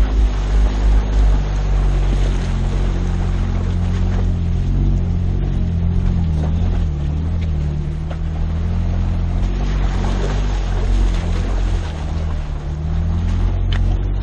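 Jeep Wrangler JK's V6 engine running at low crawling speed, its revs rising and falling slightly. Wind buffets the outside-mounted microphone.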